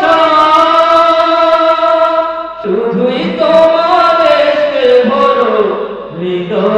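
A man singing a Bengali Islamic gojol into a microphone, in long held notes that bend and turn, with two short breaks in the line.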